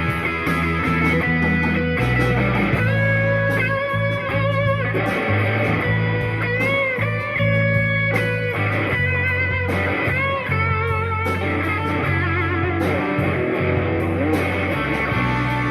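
Electric guitar playing a melodic line, with string bends and vibrato on held notes, over steady low bass notes.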